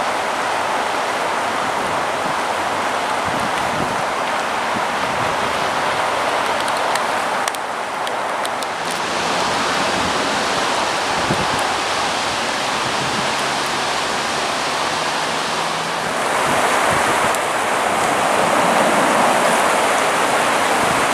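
River water rushing over a shallow riffle: a steady hiss that grows louder about two-thirds of the way through.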